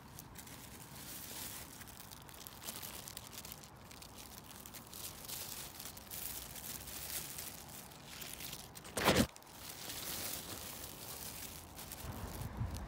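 Thin plastic carrier bag rustling and crinkling as picked lettuce leaves are put into it, with one sharp, louder crackle about nine seconds in.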